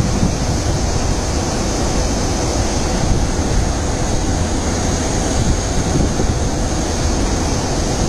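Water pouring over the crest of a large dam spillway, a loud, steady rush, with wind buffeting the microphone.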